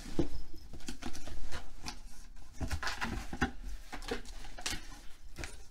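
A cardboard shipping box being handled and its flaps pulled open: irregular knocks, scrapes and rustles of cardboard, loudest in the first second or so.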